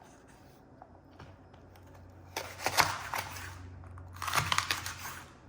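Plastic packaging crinkling and crunching in two bursts, about two and a half and four and a half seconds in.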